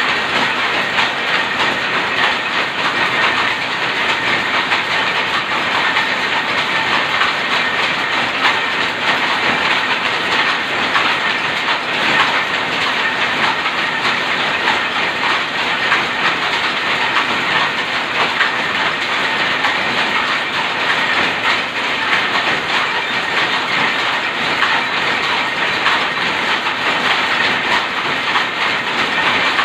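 Shuttle loom converted to a rapier loom, running and weaving plain cloth, with other power looms running around it: a loud, steady, rapid clatter.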